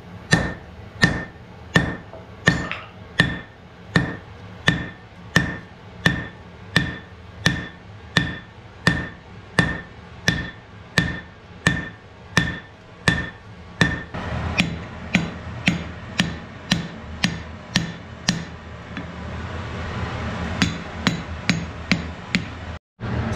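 Hand hammer forging a red-hot wrought iron axe head on an anvil: steady blows about two a second, each with a short metallic ring. In the second half the blows turn duller and less even, with a brief pause near the end.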